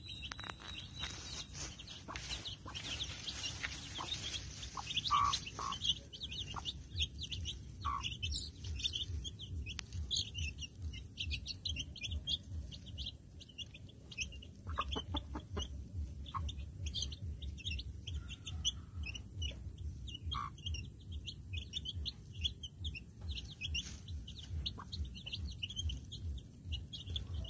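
A brood of chicks peeping steadily as they feed beside their mother hen, with a few lower clucks from the hen now and then.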